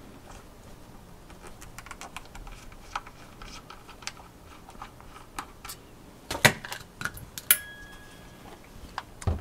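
Scattered light clicks and taps as a GTX 680 graphics card and a small screwdriver are handled while the screws holding its stock cooler are taken out. There are a few sharper clicks about six and a half seconds in and near the end, and one metallic click with a brief ring about seven and a half seconds in.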